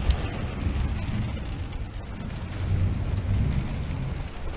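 A rainstorm heard from inside a moored boat's cabin: rain and wind on the hull and windows, with an uneven low rumble.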